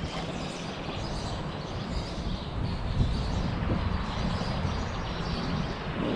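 Wind rumbling on the microphone over creekside ambience, with birds chirping faintly.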